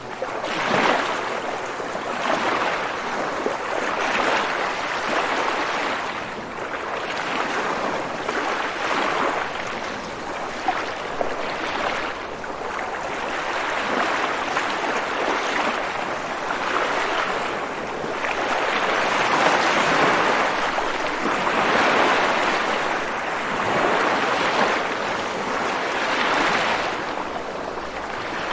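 Rushing water, a steady hiss that swells and eases every couple of seconds.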